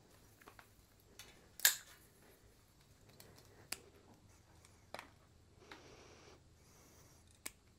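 A few sharp snips and clicks from hand wire cutters working thin electrical wires, spread over several seconds, the loudest about a second and a half in.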